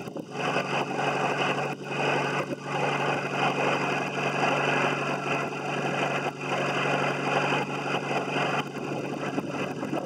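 Atomic 4 four-cylinder gasoline inboard marine engine running steadily at low throttle, pushing the small boat along.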